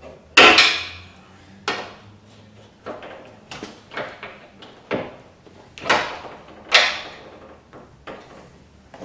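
Irregular sharp clicks and clacks of a new ACDelco gas lift support strut's end fitting and its metal retaining clip being worked onto the mount of a Chevy Trailblazer's rear window glass, about ten in all. The loudest comes about half a second in and another near seven seconds.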